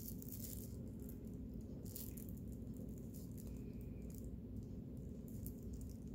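Faint crinkling rustles of plastic-bag yarn (plarn) worked with a crochet hook, in several brief bursts over a steady low hum.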